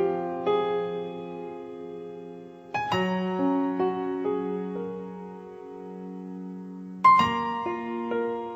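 Slow solo piano music: a chord is struck about every four seconds, with single notes between them that ring and fade.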